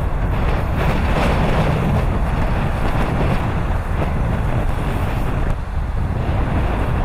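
Stiff wind blowing across the microphone: a steady rushing noise, heaviest in the low end.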